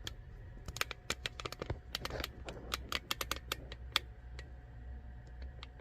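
Light, irregular clicking and tapping of small metal lock parts (pins, drivers and sliders from a gutted Mul-T-Lock MT5+) being handled and shifted on a surface, a dozen or more quick clicks over a low steady hum.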